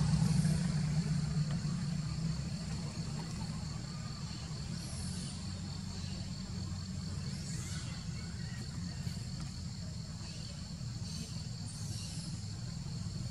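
Low engine rumble of a vehicle, loudest at the start and easing off over the first few seconds into a steady low hum. Over it runs a steady high insect drone, with a few short high chirps.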